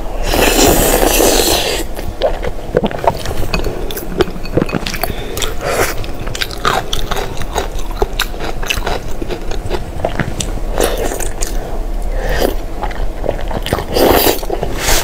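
Close-miked eating sounds: a long noisy slurp in the first two seconds, then wet chewing with many short, sharp biting and smacking clicks at an irregular pace.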